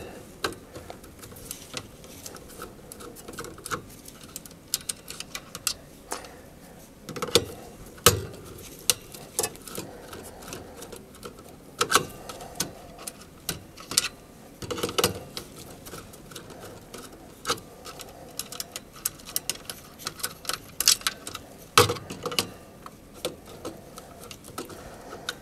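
Irregular light clicks and taps of a No. 2 Phillips screwdriver turning the lower terminal screws of a variable frequency drive, with a few louder knocks scattered through.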